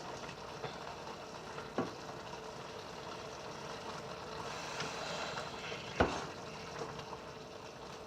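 A pan of Hamburger Helper beef pasta sizzling steadily on the stove, with two sharp knocks of the stirring spoon against the pan, about two and six seconds in.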